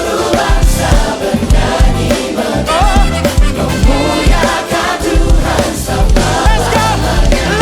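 Gospel worship song: a choir singing with full band backing, the drums keeping a steady beat.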